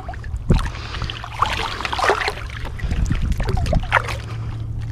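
Water splashing and sloshing as a freshly caught speckled trout is handled and threaded onto a stringer at the waterline, in irregular bursts, over a steady low wind rumble on the microphone.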